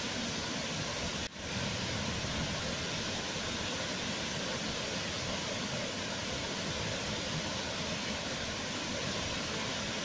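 Wide curtain waterfall: a steady, even rush of falling water, with a brief dropout just over a second in.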